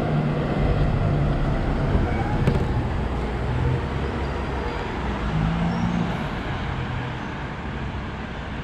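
Road traffic noise on a city street, with a passing city bus's engine droning over it in the first couple of seconds and then fading as the bus moves away.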